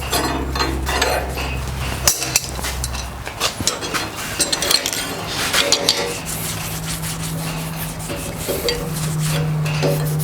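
Steel clinking, knocking and scraping as a freshly forged strap hinge is handled and rubbed with clear paste wax. A steady low hum runs underneath and shifts pitch about six seconds in.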